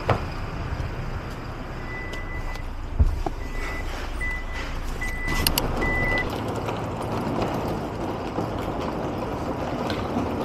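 A car running, with a steady noise bed throughout. In the first half comes a series of short electronic beeps, all at one pitch, and a single knock about three seconds in.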